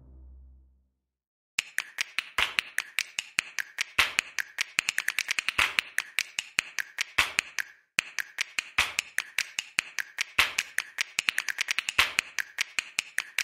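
A long run of sharp, dry clicks like finger snaps or taps, in an uneven rhythm with quick flurries, starting about a second and a half in. They pause briefly about halfway through and stop near the end. This is a sparse percussion break between louder electronic background music.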